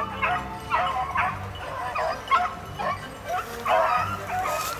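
A pack of beagles baying while running a rabbit: many short, overlapping high calls, several a second.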